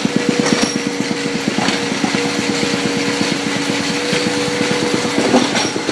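Engine of heavy construction equipment running, a fast, even chugging that smooths into a steady hum about two seconds in, with a few short knocks.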